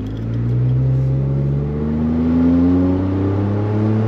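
Ford F-150 3.5 EcoBoost twin-turbo V6 accelerating through a 4-inch Pypes aftermarket exhaust, heard from inside the cab. The engine note climbs steadily in pitch as it pulls, a raspy 'ricer' sound, though a little deeper than before.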